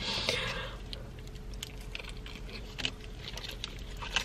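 Close-up sounds of chewing a mouthful of burrito: scattered soft mouth clicks, with a brief rustle near the start.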